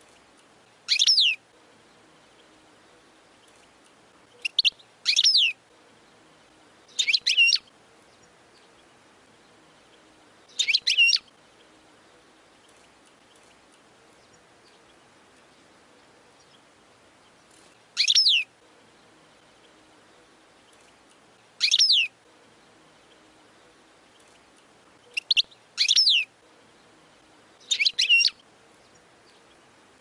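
European goldfinch singing in short, separate bursts of high twittering, about ten brief phrases spaced a few seconds apart.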